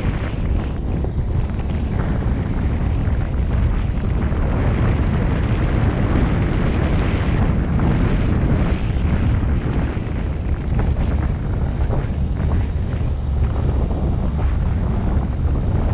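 Car driving along a narrow asphalt road, heard through a GoPro's microphone: a steady, loud low rumble of tyre, engine and wind noise.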